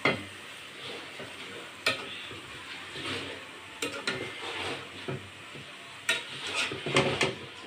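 Wooden spatula stirring and scraping a metal pan of spinach leaves cooking over a gas flame, with a steady sizzle. A few sharp scrapes and knocks against the pan come about two, four and six seconds in, with a quick run of them near the end.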